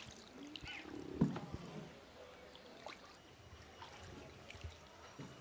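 A wooden boat paddled through floodwater: the paddle dipping and pulling, water swirling and trickling off the blade, with a sharp knock about a second in.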